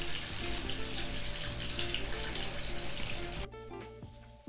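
Fish shallow-frying in coconut oil in a small non-stick pan: a steady sizzle and crackle under light background music. The sizzle cuts off abruptly about three and a half seconds in, leaving the music quieter.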